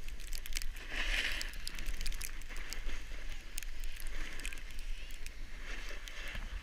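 Snowboard sliding and carving over groomed snow, a scraping hiss with crackly clicks that swells about a second in, over a steady low rumble of wind on the microphone.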